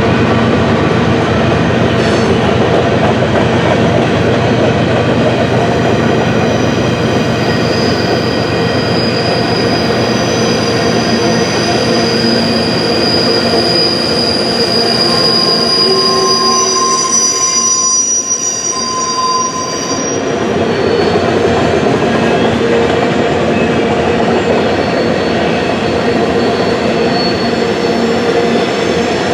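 Freight train of empty grain cars rolling past, loud and continuous, with the rumble and clatter of the cars. Wheels squeal in high, steady tones that come and go.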